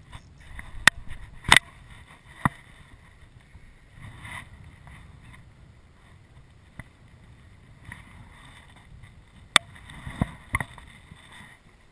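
Water slapping against a small boat's hull, with wind rumbling on the microphone. Several sharp clicks and knocks come through, three in the first few seconds and a quick cluster near the end.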